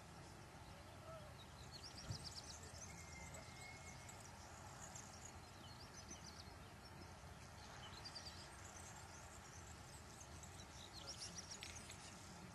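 Faint outdoor ambience: small birds chirping in several short high series over a low steady rumble, with one soft thump about two seconds in.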